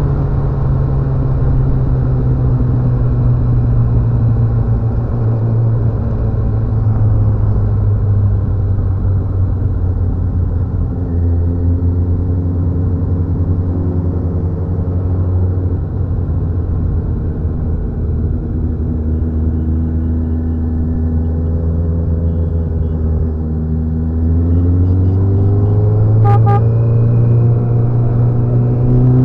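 Motorcycle engine running at a steady cruise, easing off a little in the middle and picking up revs again near the end.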